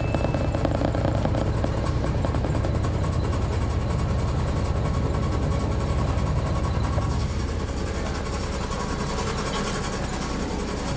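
Detroit Diesel Series 60 diesel engine of an MCI D4000 coach running while the bus is under way, heard from inside the passenger cabin. About seven and a half seconds in, the deep drone eases off and gets a little quieter.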